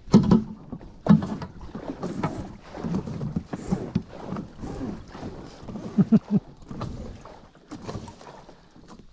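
Inflatable Starboard stand-up paddleboard being slid over rock and ground into the water, giving a run of irregular short scrapes and squeaky rubs. Dragging the board like this risks damaging it.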